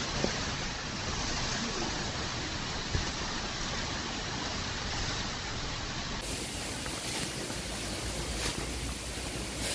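Rain beginning to fall on the trees and undergrowth, a steady rushing hiss with a low rumble and a few faint knocks.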